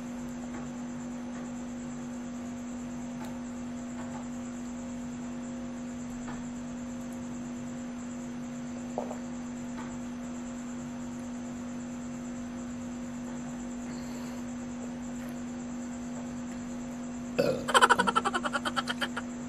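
A steady low hum runs throughout. Near the end comes a loud belch, rough and rapidly pulsing, lasting about a second and a half, after gulps of carbonated Sprite.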